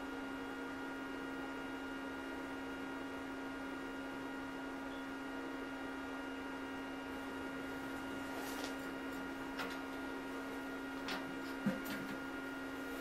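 Steady electrical hum. A few light clicks and knocks in the second half as parts are handled on the steel welding table.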